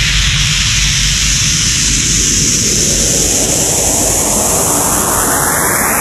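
Electronic dance music build-up: a loud whooshing noise sweep that rises in pitch, over a low pulsing bass.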